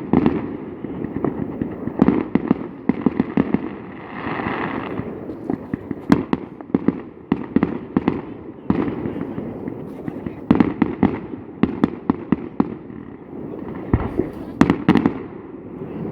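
Fireworks display: a rapid, irregular run of bangs and crackling explosions over a steady low rumble, with a burst of hissing about four seconds in.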